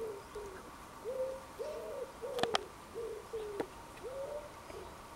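A pigeon cooing outdoors: a run of soft, low, repeated coos in rhythmic phrases. Two sharp clicks come about halfway through, with another a second later.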